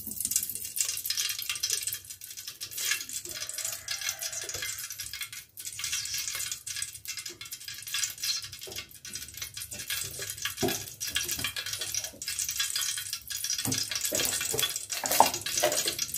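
Cooking oil sizzling and crackling as it heats in an aluminium pot: a steady hiss dotted with small pops, with a couple of knocks later on.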